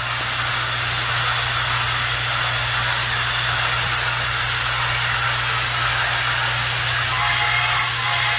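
Battery-powered TrackMaster toy train motor whirring steadily, with a constant low hum under an even mechanical hiss.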